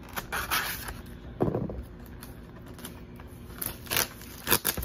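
Hard plastic laptop shell case being handled: scattered clicks and knocks, then a clear plastic bag crinkling near the end.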